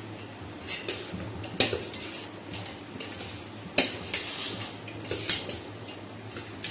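A metal spoon clinking and scraping against a stainless steel bowl while stirring a dry puffed-rice bhel mixture. Two clinks stand out as the loudest, about one and a half seconds in and nearly four seconds in, among several lighter ones.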